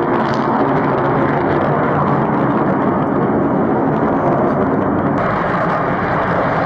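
Aircraft engines running steadily: a constant loud rushing noise with a low hum under it.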